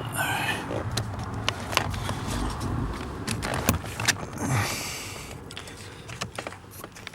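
Handling noise from hands working up behind a car's dashboard in the footwell: scattered small clicks and knocks, with brief rustling and scraping twice, near the start and about four and a half seconds in.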